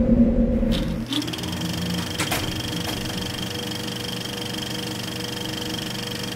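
Film projector sound effect: a fast, even mechanical clatter with a steady high whine, taking over from a low drone about a second in.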